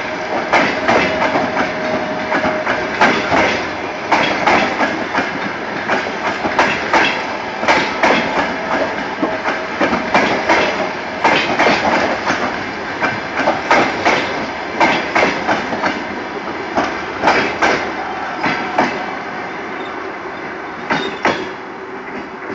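Passenger coaches of a train passing close by, their wheels clattering over the rail joints in a steady clickety-clack. It fades after the last coach goes by near the end.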